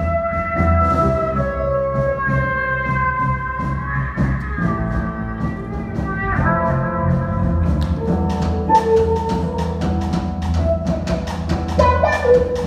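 Live jazz big band playing a fusion tune: the horns hold sustained chords that change every second or two over bass and keyboards. The drum kit grows busier and louder in the second half, with cymbal hits coming thick and fast near the end.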